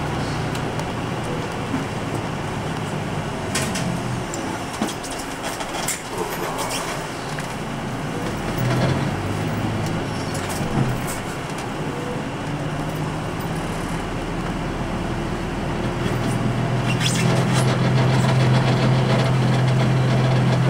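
Cabin sound of a 2006 Nissan Diesel Space Runner RA city bus moving slowly: the diesel engine running with road noise, a few short clicks and rattles. The low engine note grows louder and steadier over the last few seconds.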